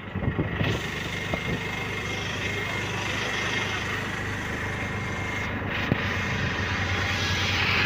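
Auto-rickshaw's small engine running steadily at road speed, heard from inside the open cab, with road noise.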